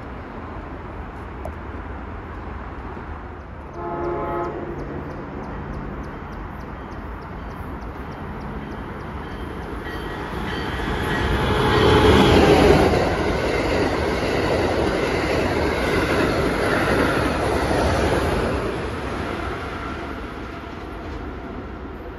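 Amtrak Acela Express high-speed electric trainset passing through the station at speed: the rush of wheels and air builds to a peak about twelve seconds in, holds for several seconds and fades as the train goes away. A short train horn blast sounds about four seconds in.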